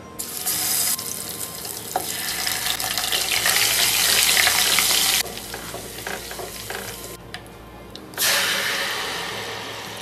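Garlic paste sizzling hard as it goes into hot oil with spice seeds in a cooking pot. The sizzle drops away sharply about five seconds in, then flares up loudly again about eight seconds in and slowly dies down. Faint background music plays underneath.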